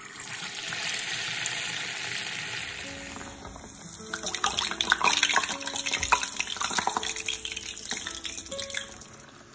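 Pathiri dough sizzling in hot oil, starting suddenly as the dough goes into the pan, then bubbling and crackling as it deep-fries. Background music comes in about three seconds in.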